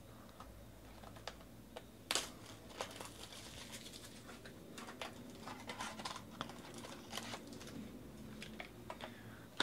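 Faint scattered clicks, snaps and crinkles of a Bowman Sterling trading-card box being opened and its sealed card pack unwrapped by hand, with the sharpest snap about two seconds in.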